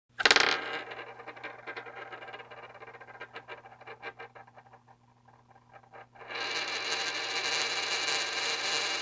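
A coin spun on a hard surface: a sharp start, then a rattling spin that fades as it wobbles down and settles about five seconds in. About six seconds in, a louder steady whirring spin starts and keeps going.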